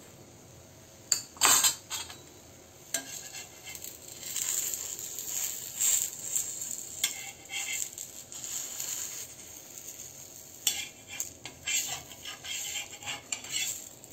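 Metal spatula scraping and tapping against a frying pan as it slides under a thin filled crêpe to fold and roll it, with a couple of sharp clinks about a second in and a run of short scrapes near the end.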